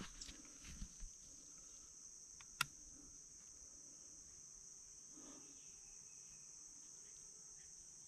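A single sharp click of a rifle safety being pushed off to fire (the 'red' showing) about two and a half seconds in, over steady high insect chirring.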